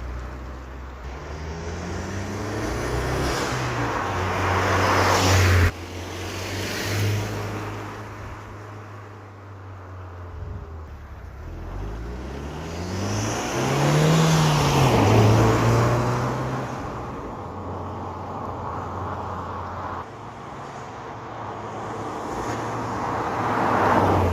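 Audi TT driving, its engine rising and falling in pitch and loudness as it speeds up and goes by. The sound cuts off abruptly about six seconds in and again around twenty seconds, as between separate passes.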